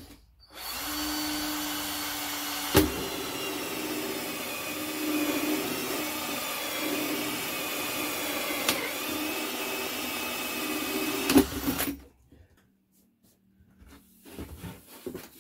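Power drill running a 40 mm hole saw through 110 mm PVC waste pipe. It starts about half a second in, cuts steadily with a few sharp clicks as the saw bites, and stops about twelve seconds in.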